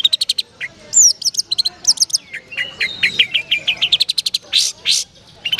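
Long-tailed shrike (cendet) singing in a cage: fast runs of sharp, repeated chips and trills with quick downslurred whistles, broken about four and a half seconds in by two harsh rasping notes.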